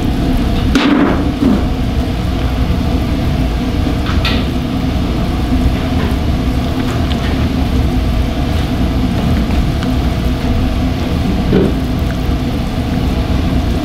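Steady low mechanical roar of commercial kitchen equipment with a faint hum. A few light clicks come from chopsticks tossing noodles in a ceramic bowl.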